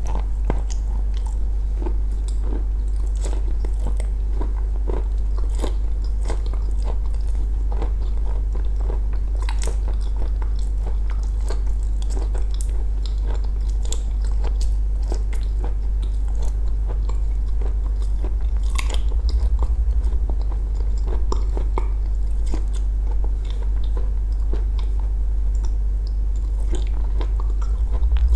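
Close-miked mouth sounds of a person eating from a spoon: chewing and many small wet clicks of the lips and tongue, over a steady low hum.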